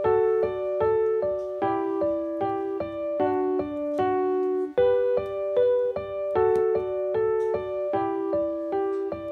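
Background piano music: a gentle, steady repeating figure of single notes and chords, about two to three notes a second.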